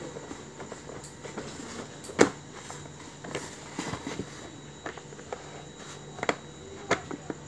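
Clear plastic food containers being handled: scattered knocks and clicks of plastic lids and boxes set down and moved, the loudest about two seconds in, over a low steady hum.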